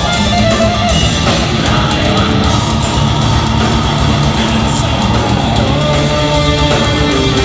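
Progressive metal band playing loudly, with electric guitars over a steady beat.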